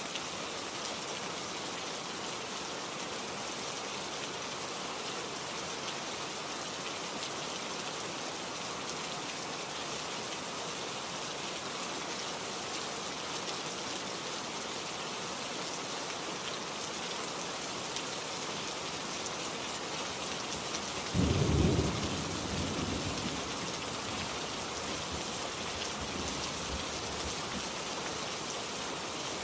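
Steady rain falling, with a single low roll of thunder about two-thirds of the way through that fades away over several seconds.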